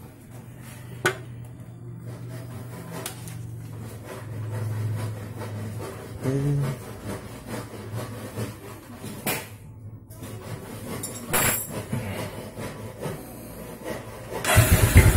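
A few scattered clicks and knocks, then near the end the rebuilt 228 cc single-cylinder engine of a Honda Megapro-based custom motorcycle starts and runs with loud, even exhaust pulses. This is its first start after a full overhaul.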